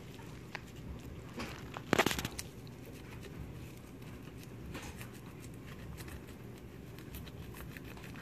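Fillet knife cutting along a crappie on a cutting board: faint scraping and crackling of the blade through scales, skin and flesh, with a brief, louder rasp about two seconds in.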